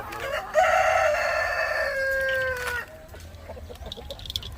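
A rooster crowing once: one long crow starting about half a second in and lasting about two seconds, dropping in pitch as it ends. Other chickens cluck faintly around it.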